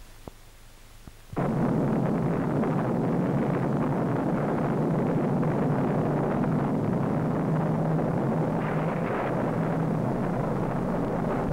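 Film-soundtrack hydrogen bomb explosion: after a faint click or two, a loud rumble starts suddenly about a second in and keeps going steadily.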